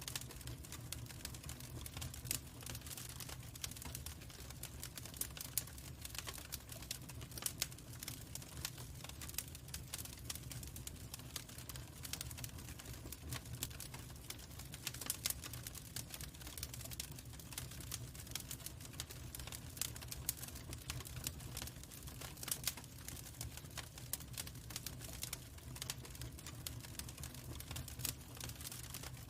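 Log fire crackling: many small sharp pops and snaps at irregular intervals over a steady low rumble.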